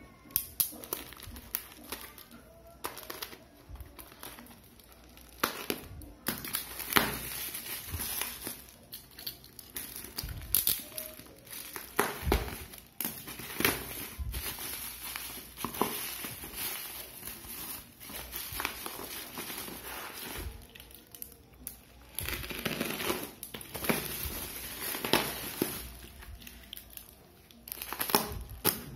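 Bubble wrap around a parcel crinkling and rustling in irregular bursts as it is handled and slit open with a utility knife, with sharp crackles and clicks among the rustling.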